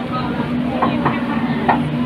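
Riverboat's engine running with a steady low hum, with a few short knocks over it about one second in and again near the end.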